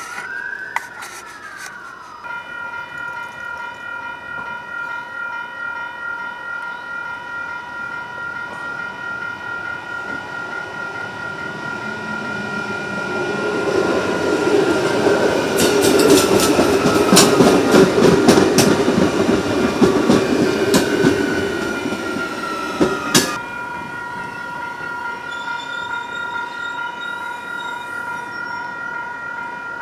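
An Adelaide Metro 4000-class electric train arriving past a level crossing whose warning alarm rings steadily throughout. The train grows loudest about halfway through, with wheels clicking over rail joints and a falling motor whine as it slows into the platform. The alarm carries on after the train has passed.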